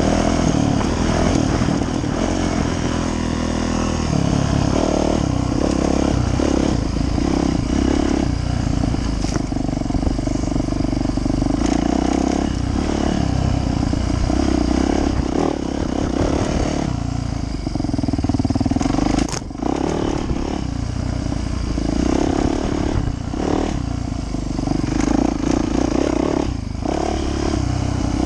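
Yamaha YZ450F's single-cylinder four-stroke engine running under changing throttle as the dirt bike is ridden along a trail; the engine note rises and falls, with a brief drop about two-thirds of the way through.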